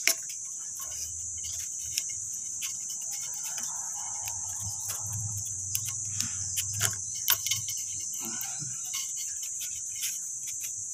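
A steady high insect trill, like crickets, in the background, with scattered faint clicks and rubbing from hands working a rubber seal onto a porcelain toilet's outlet horn.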